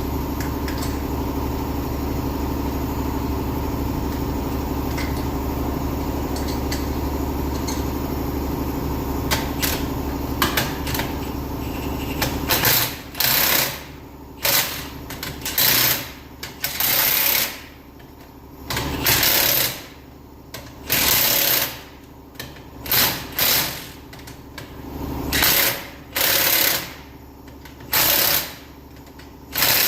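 A steady machine hum for about the first twelve seconds, then a power tool run in repeated short bursts, each about a second long with brief pauses between, as it works on fasteners.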